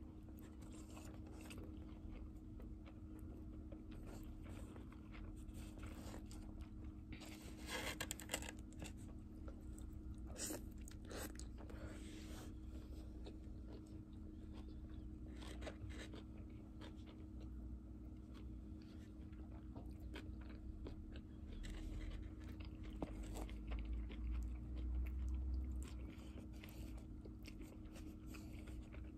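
Close-up chewing and biting of a mouthful of grilled beef, rice and kimchi, with irregular soft crunches and small wet clicks. A steady low hum runs underneath.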